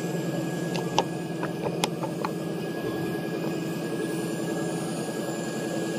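Steady machine hum from a CNC router table, with a quick run of light wooden clicks and knocks between about one and two seconds in as a bicycle shape cut from MDF is pushed out of its board by hand.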